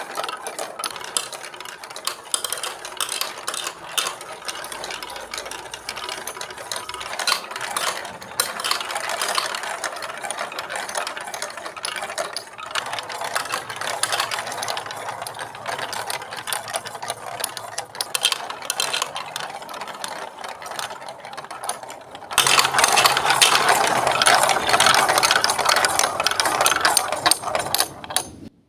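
Marbles rolling and clattering along a plastic Lego Duplo block track, a steady stream of small rattling clicks. About 22 seconds in it turns suddenly louder and denser, then stops abruptly just before the end.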